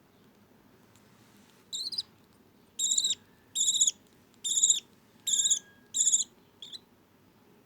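Baby budgie chick, about two weeks old, giving a run of high-pitched begging chirps while being hand-fed. There are about seven chirps, a little under a second apart, the last one short.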